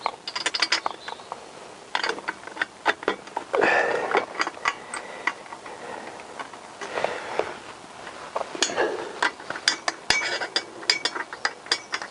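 Metallic clicking and clinking in several quick runs as exhaust nuts are started on the cylinder-head studs with a small socket and the steel header pipes of a four-into-one exhaust knock as they are shifted into place on a Honda CBR1000F.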